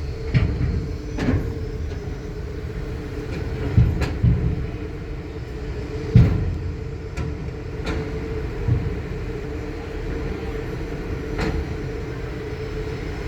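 Car driving slowly onto a ferry's vehicle deck, heard from inside the cabin: a low rumble and a steady hum, broken by several sharp thumps and clunks, the loudest about six seconds in.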